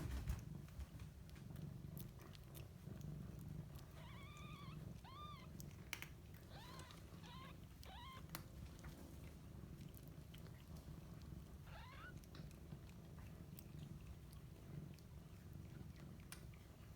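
Faint steady cat purring under a litter of 5-day-old kittens' short, high squeaky mews. There are a cluster of about six between four and eight seconds in, and one rising mew near twelve seconds.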